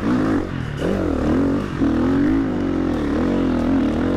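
Enduro dirt bike's engine running under load off-road, its revs repeatedly rising and falling as the rider works the throttle, with a brief dip right at the start and another about a second in.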